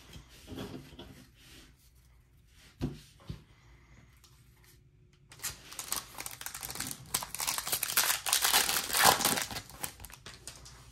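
Foil wrapper of a trading-card pack crinkling and tearing as it is ripped open by hand, starting about halfway through and loudest near the end. A single knock comes about three seconds in.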